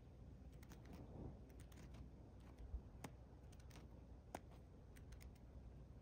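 Faint, scattered small clicks and ticks of a curve-billed thrasher picking with its bill at seeds and dry ground, with a few sharper clicks near the middle.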